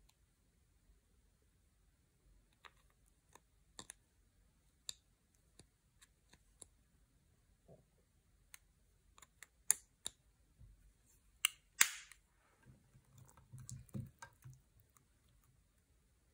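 Scattered sharp clicks and taps of hard plastic: a toy and a plastic stick being handled and knocked against a glass dish of slime and makeup, irregularly spaced, loudest a little past the middle. A soft rustle of hands moving at the slime follows, lasting about two seconds.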